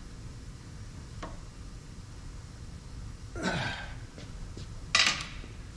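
Low steady workshop rumble with a faint click about a second in, a breathy exhale about three and a half seconds in, and a short, sharp clack near the end, the loudest sound here, from hand work at a bench vise.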